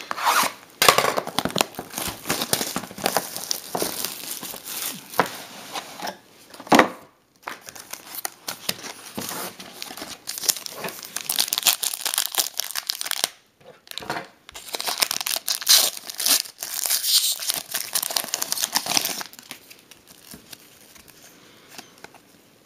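Plastic wrapping on a box of trading cards being torn open and crinkled: a long run of ripping and crackling that dies down near the end.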